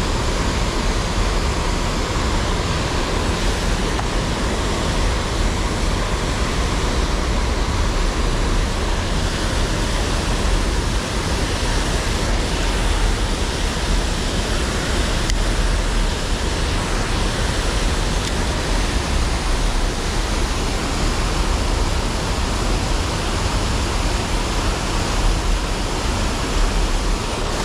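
A small waterfall pouring over rock ledges: a steady, unbroken rush of falling water.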